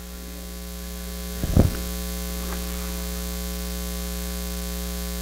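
Steady electrical mains hum, a buzz with many evenly spaced overtones, carried through the church sound system, growing slightly louder over the first second or so. A single thump about a second and a half in, with a faint tick a second later.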